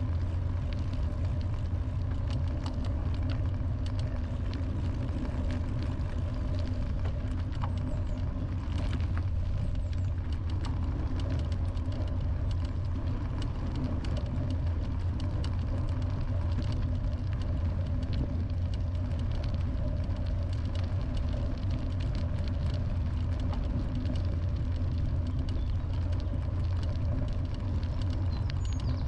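Steady low rumble and hum of a wheeled vehicle in motion, with faint scattered ticks over it.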